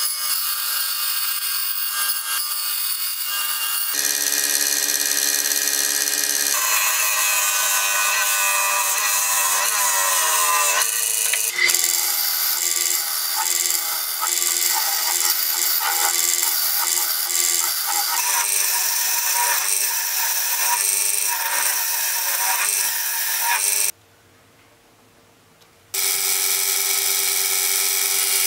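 Power tools cutting lime wood in a run of short edited segments: a bandsaw, then a wood lathe with a turning gouge cutting the spinning blank. Each segment has a steady motor hum under the cutting noise. About 24 seconds in the sound drops to a quiet gap of about two seconds before the lathe cutting resumes.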